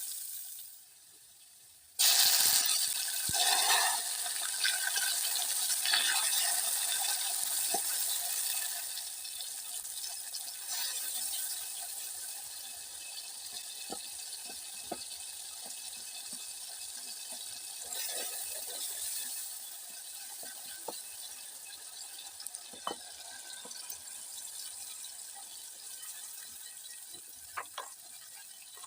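Water running from a tap into a sink, starting suddenly about two seconds in, with scattered small clicks and knocks.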